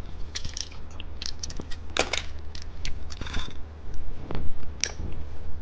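Plastic candy packaging being handled: light crinkling with scattered sharp clicks and taps.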